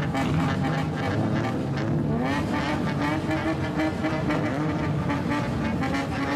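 Straight-piped engine of a kaido-racer-style old Japanese car being revved again and again at low speed, its pitch rising and falling with each blip of the throttle.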